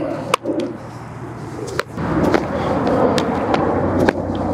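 Baseballs tossed as short hops smacking into a leather fielder's glove: a few sharp pops, the loudest near the start, in the middle and near the end. They sit over steady background noise that gets louder about halfway through.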